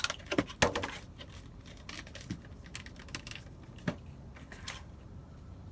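Food packaging being handled: a few sharp clicks and crinkles in the first second, faint rustling, then two more clicks later on.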